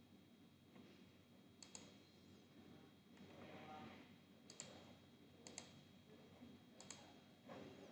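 Faint computer mouse clicks, four separate clicks spaced a second or more apart, each a quick press-and-release pair.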